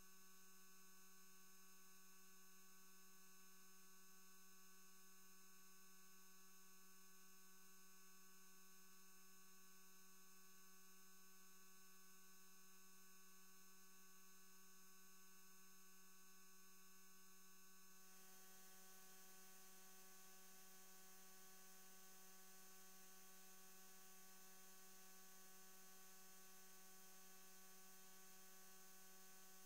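Near silence with a faint, steady electrical hum. A little more hiss joins it about eighteen seconds in.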